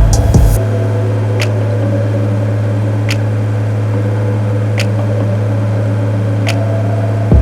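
Background music holding one steady low bass note, with a light tick about every second and a half.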